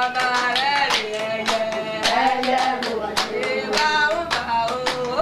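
Singing voices over quick, steady hand clapping, about four or five claps a second.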